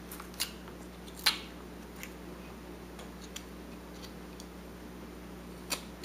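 Carving knife slicing chips off a wooden block: a few short, sharp cuts at uneven intervals, the loudest about a second in, over a faint steady hum.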